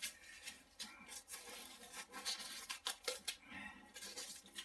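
Utility knife blade carving and scraping pink foam insulation board, a run of short, irregular scratchy strokes.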